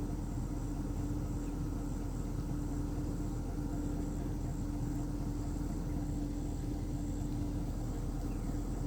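Steady outdoor background: an even low rumble with a constant mid-pitched hum, and a faint, high, evenly pulsing sound above it.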